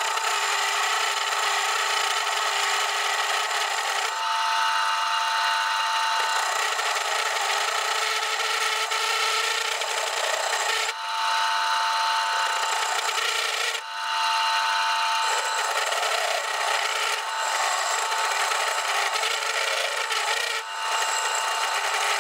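A metal lathe turning a steel workpiece while a homemade brazed-tip parting tool cuts a groove into it: a steady high ringing over a hiss. The sound breaks off briefly three times in the second half as the cut pauses. This is the newly brazed tool's test cut, and it cuts cleanly.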